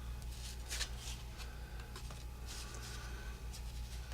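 1984 Topps baseball cards being flipped through by hand: a few short papery swishes of cardboard sliding over cardboard, over a steady low electrical hum.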